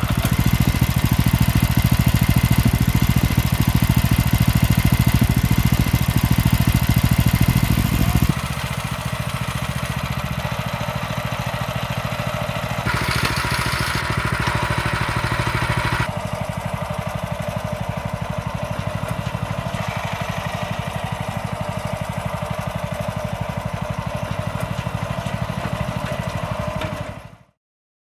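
Single-cylinder 196 cc petrol engine of a tracked power barrow running. It runs louder for about the first eight seconds, then drops abruptly to a quieter steady run, with a hissier stretch for about three seconds midway, and the sound cuts off near the end.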